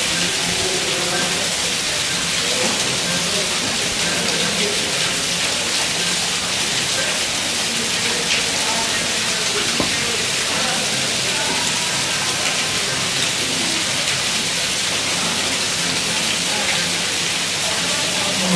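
Steady hissing noise, like rushing water, with faint indistinct voices in the background.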